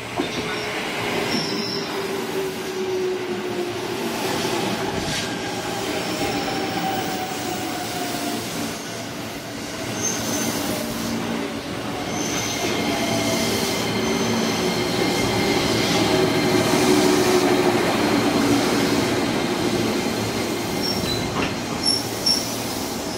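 JR 205-series electric train running into a station and braking to a stop. Its running whine slides down in pitch as it slows, with short high wheel and brake squeals, the last ones just before it halts.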